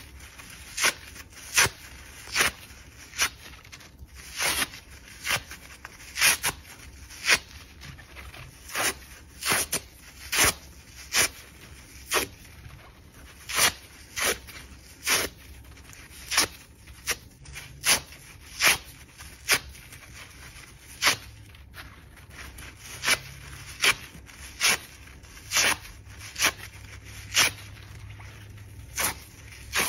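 Slices of microfiber car sponge foam being torn apart by hand: a steady run of short rips, about one or two a second.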